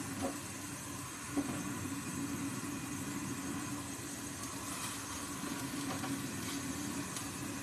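Steady hum and hiss of a gas stove burner, with a few faint clicks from the wire grill basket as it is turned over the flame.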